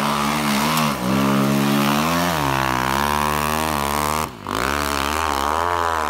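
Snow bike engine revving hard in deep powder, its pitch rising and falling with the throttle. The revs drop away briefly about four seconds in, then pick up again.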